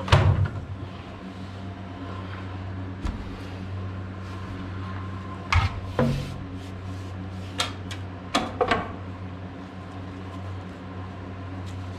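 A machine's motor hums steadily at a low pitch while gear is knocked about and set down, with sharp clunks about six seconds in and again around eight to nine seconds in.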